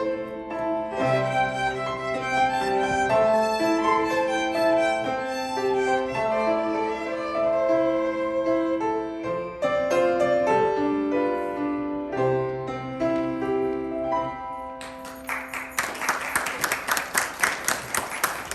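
Violins playing a held melody over piano accompaniment, closing out the piece. Near the end the music gives way to clapping applause.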